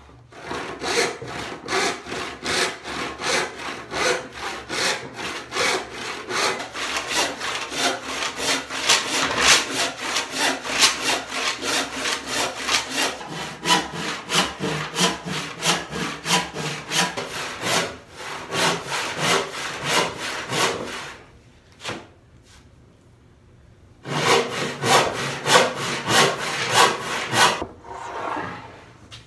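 Hand saw cutting through a board in steady back-and-forth strokes, about three a second. The sawing stops for a few seconds about two-thirds of the way in, with a single knock during the pause, then picks up again for a few more seconds.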